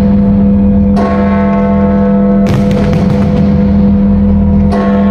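Bells ringing, with new strokes about a second in, about two and a half seconds in and near the end. Each stroke's ring carries on over a steady low hum.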